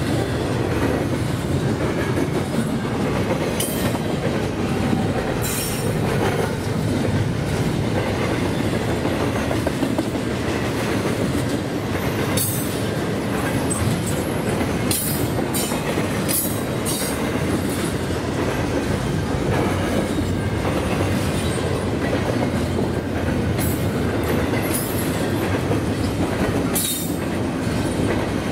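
Double-stack container well cars of a freight train rolling past at speed: a steady heavy rumble and clatter of steel wheels on the rails, with short high-pitched wheel squeals now and then.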